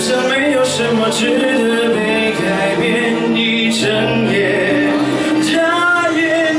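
A man singing a pop song through a microphone over instrumental accompaniment.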